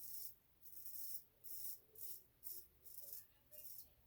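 Feather SS kamisori straight razor scraping through lathered stubble in short, crisp strokes, about two a second.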